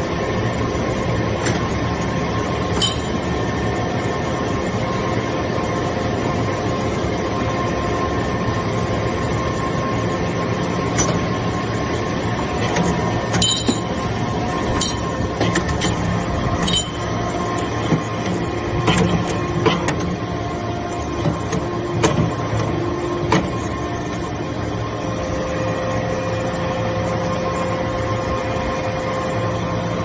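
Hydraulic briquetting press for stainless steel chips running: a steady hum and drone from its hydraulic pump unit, with occasional sharp metallic clicks and clinks.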